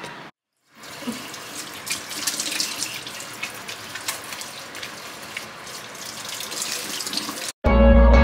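Kitchen faucet running into the sink while hands are washed under the stream, the water splashing unevenly. Music with a heavy bass starts suddenly near the end.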